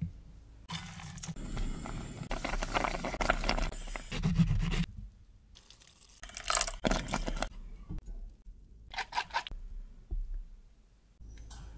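A series of close-up food-prep handling sounds: scraping and stirring in bowls, and about six seconds in a lemon half squeezed by hand, its juice dripping into a glass bowl.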